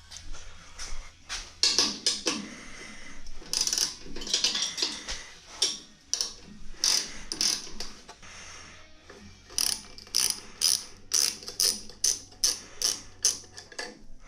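Hand socket ratchet clicking through repeated short strokes as a clamp is loosened. The strokes come quicker and more evenly in the second half, about two to three a second.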